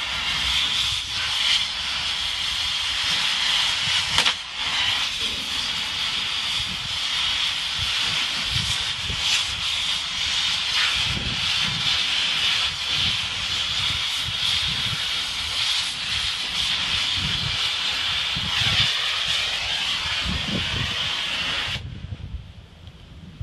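Oxy-fuel cutting torch hissing steadily as it burns through a steel anchor-chain link. Near the end the hiss stops abruptly.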